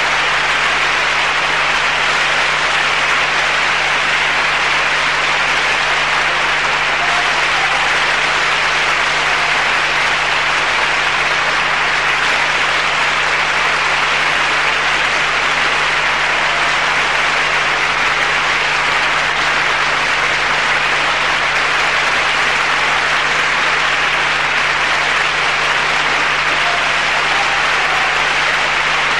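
Audience applauding steadily and evenly, with a low steady hum underneath.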